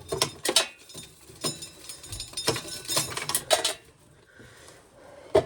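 Corn sheller stripping an ear of corn: a quick, irregular clatter and clinking of kernels and mechanism that stops a little under four seconds in. A single sharp thump comes near the end.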